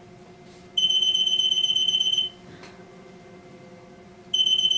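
Electromagnetic (EM) anti-theft security gate alarm sounding twice: a loud, steady high-pitched tone lasting about a second and a half, starting under a second in and again near the end, signalling that the gate has detected an active EM security strip.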